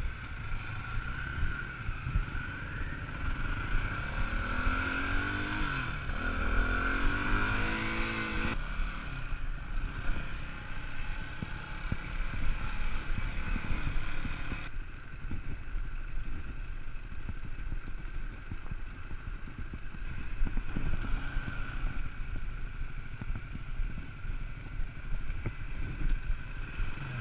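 Off-road trail motorcycle engine running under load over rough ground, revving up several times with rising pitch about four to eight seconds in, then carrying on at lower revs.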